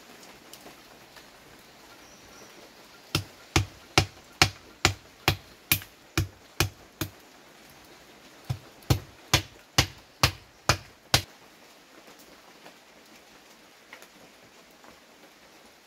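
Repeated sharp strikes, a little over two a second: about ten beginning about three seconds in, then after a short pause about seven more.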